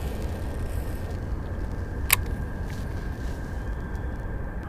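Low, buffeting rumble of wind on the microphone, with a single sharp click about two seconds in.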